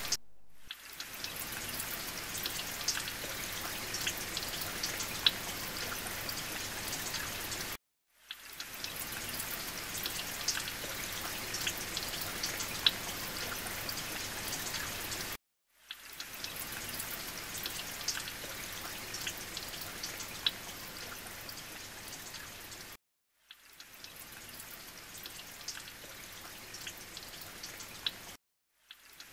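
Water trickling and dripping from a sandstone rock overhang into a shallow pool: a steady splashing hiss with single louder drops now and then. It breaks off into a moment of silence about every seven and a half seconds and starts again.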